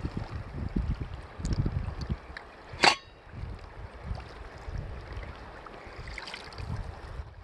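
Water lapping and splashing around a kayak on choppy river water, with wind buffeting the microphone in gusts. One brief, sharp, loud sound comes about three seconds in.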